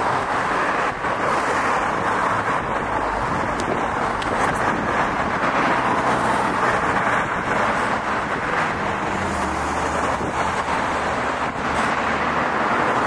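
Steady road traffic noise with wind on the microphone, and under it the low, even hum of a fire truck's engine, most noticeable about nine to twelve seconds in.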